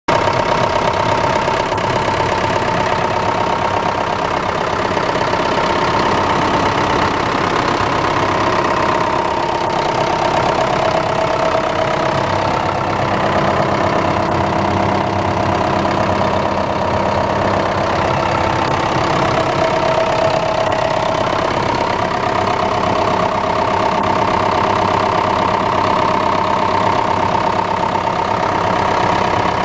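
Liebherr 538 wheel loader's diesel engine idling steadily, heard close up at the open engine bay.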